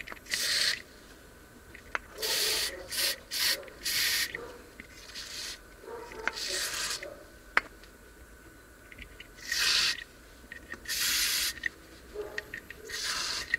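Aerosol can of liquid electrical insulation spraying in about ten short hissing bursts, each under a second, coating the parts of a starter motor. A few faint clicks fall between the bursts.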